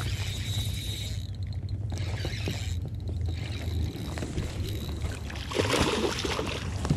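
A hooked bass thrashing and splashing at the water's surface beside a kayak about six seconds in, over a steady low hum.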